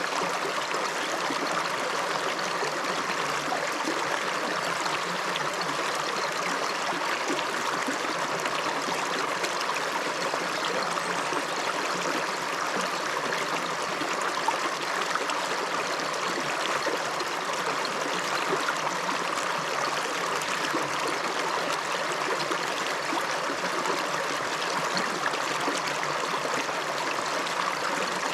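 River water running: a steady, even rush of flowing water that does not change.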